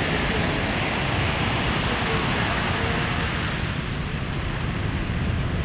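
Steady wash of sea surf on a beach, with wind rumbling on the microphone.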